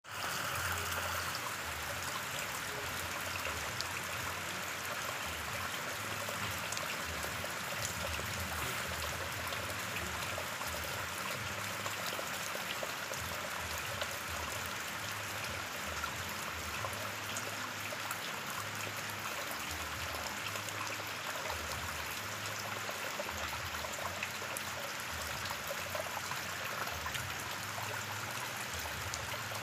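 Steady rain falling onto open water: an even hiss of countless drops, with scattered small patters of nearer drops hitting the surface.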